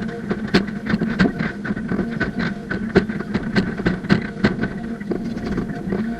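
Excavator working a slope, its engine running with a steady hum under a rapid, irregular clicking clatter, about three to five clicks a second.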